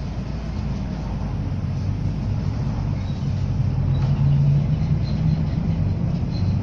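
Bus diesel engine running with a low, steady drone that gradually gets louder, strongest around four seconds in.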